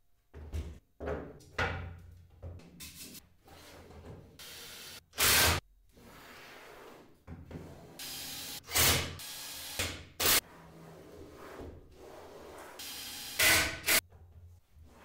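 Wooden drawer parts being handled on a workbench: a run of knocks, thuds and scrapes as panels are set down, slid and clamped, with the loudest bangs about five, nine and thirteen seconds in.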